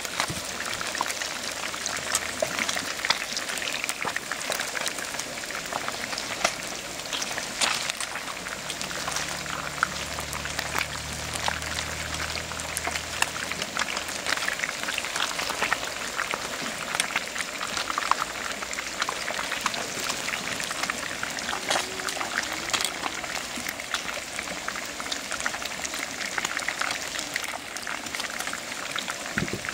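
Fish deep-frying in hot oil: a steady, dense sizzle full of small crackles as the fish crisps.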